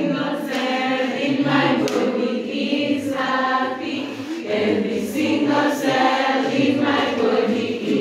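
A choir of girls' voices singing a song together in held phrases.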